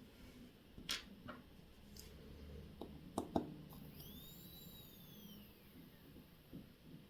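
A few light clicks and taps of small tools and parts at a watchmaker's bench, the loudest a pair of clicks about three seconds in, followed by a faint high squeak that rises and then falls.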